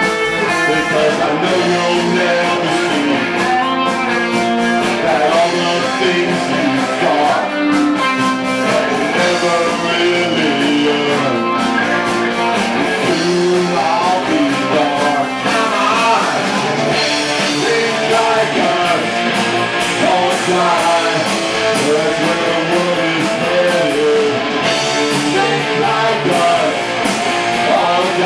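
A rock band playing live on bass guitar and electric guitar. This is an instrumental stretch of the song, with no singing.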